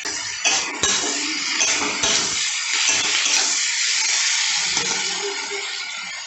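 Chopped onions, capsicum and tomato sizzling in a hot kadai as they are stir-fried with a metal spatula, with a couple of sharp scrapes or knocks of the spatula against the pan in the first second.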